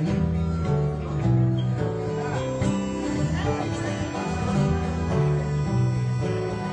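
A band playing an instrumental passage without vocals, with guitar to the fore and notes changing in a steady pattern.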